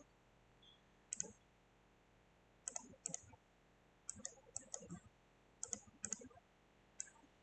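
Computer mouse clicking in short irregular clusters of quick clicks against near silence.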